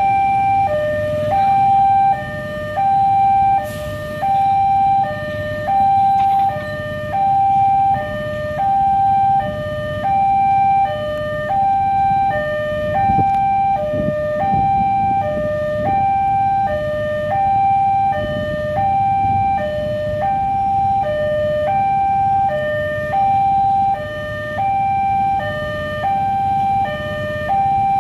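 An Indonesian railway level-crossing alarm rings right beside the signal, an electronic bell alternating a higher and a lower tone at about one pair every 1.2 s. It is warning of an approaching train with the barriers down, over a low background rumble.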